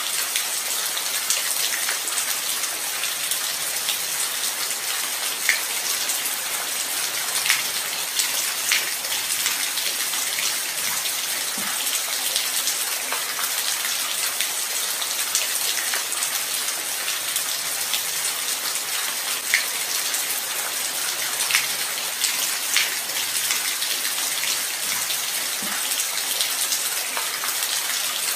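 Light rain falling steadily: an even hiss with scattered louder drops ticking close by.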